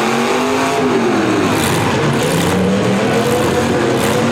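Several V8 demolition derby cars' engines revving up and down at once, their pitches rising and falling over one another.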